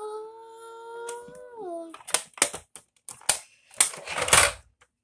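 A child's long, wailing "Nooo!" held on one pitch, dropping off just under two seconds in. Then a string of irregular knocks and clatters as plastic toy figures are handled on a wooden floor.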